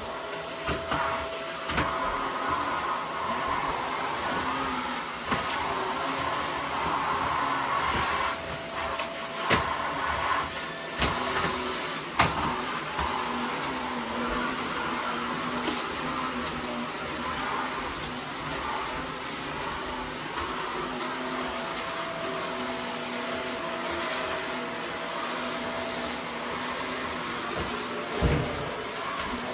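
Vacuum cleaner running steadily as it sucks up crumbled sand-wall debris, with scattered sharp clicks of grit going up the nozzle.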